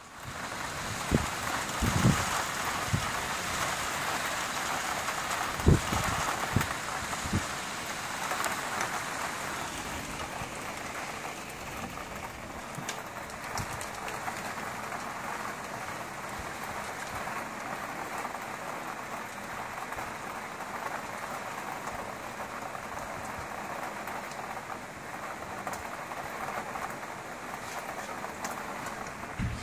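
Rain falling steadily in an even hiss, with a few short, dull thumps in the first several seconds.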